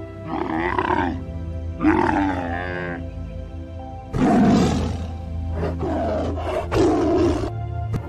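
A camel calling twice, each call about a second long, then a tiger roaring several times in the second half, over steady background music.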